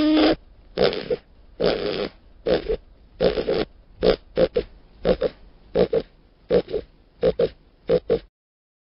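Aardvark grunting in a run of short separate grunts, the first ones longer and spaced out, the later ones shorter and quicker, about fifteen in all, stopping abruptly near the end.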